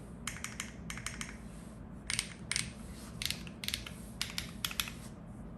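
Typing on a Neo65 Cu custom mechanical keyboard with Keygeek M3 switches, an aluminium plate, GMK Matsu keycaps and no foam. Quick clusters of sharp key clacks come in bursts with short pauses between them.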